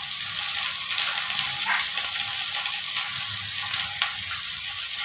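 Okra frying in oil in a pan, a steady sizzle, with a few faint snaps as hyacinth bean pods are split open by hand.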